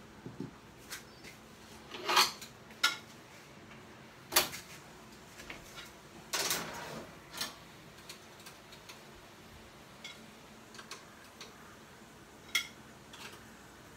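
Scattered clinks and clanks of a plate and metal kitchenware being handled at an oven, with one longer rattling clatter about six and a half seconds in.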